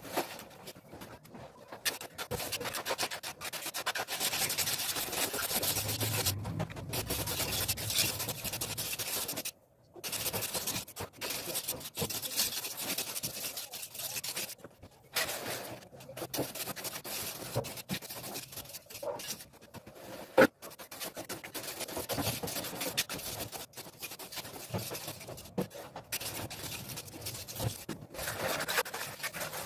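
Steel trowel scraping and smoothing the surface of a freshly laid cement floor in repeated strokes, with brief pauses between passes and one sharp knock about twenty seconds in.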